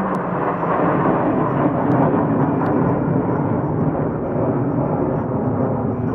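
Blue Angels F/A-18 Hornet jets flying in a five-ship formation: a loud, steady roar of jet engines, with a falling tone at the start as they pass, fading slowly near the end.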